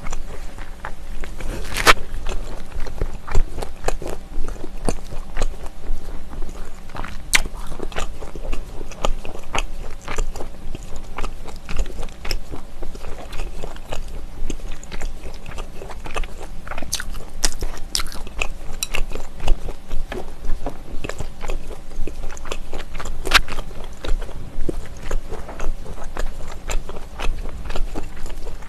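Close-miked chewing with steady wet mouth clicks and smacks, and a few sharper clicks now and then.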